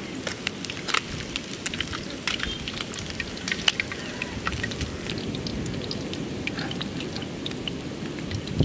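Fish pieces deep-frying in hot oil in a wok: steady sizzling, with many sharp pops and crackles throughout.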